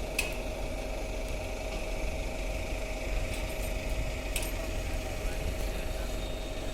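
Truck-mounted concrete pump's diesel engine running steadily, with a constant mid-pitched whine over a low rumble. Two sharp metallic clicks come through, one at the start and one about four seconds later.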